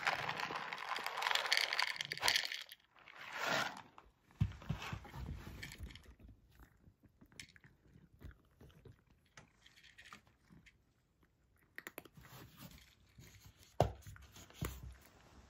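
Dry cat kibble rattling out of its bag onto a wooden dish, with a second shorter burst about three seconds in. From about four seconds in, a cat crunches and chews the dry kibble in irregular bites.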